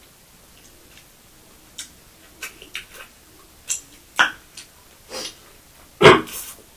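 Close-miked eating sounds: scattered short wet mouth smacks and chewing clicks as chicken and dhido are eaten by hand, with one loud wet sucking smack about six seconds in.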